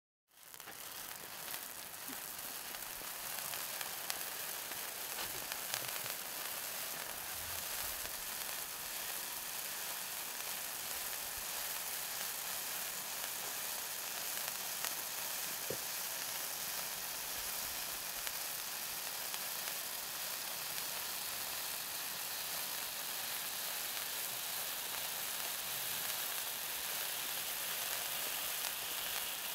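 Three table spark fountains burning together with a steady fizzing hiss, with occasional faint crackles from the spitting sparks.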